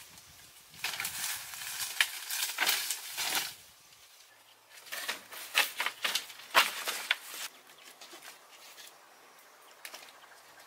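Rustling and scraping with light clicks and knocks as a person climbs through a lashed wooden and bamboo frame, in two bursts: about a second in, and again around five seconds in.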